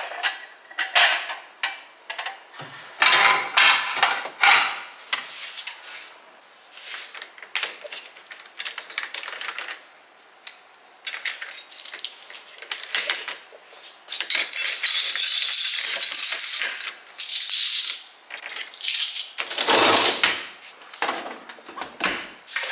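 Dishes and cutlery clinking and clattering as they are handled and put away, with a few seconds of continuous clatter in the middle and one heavier knock near the end.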